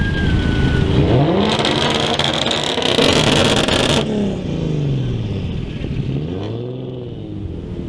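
Japanese performance car's engine accelerating hard, its pitch climbing for about two seconds under a loud exhaust rasp that cuts off suddenly, then falling away. A second, shorter rev rises and falls near the end.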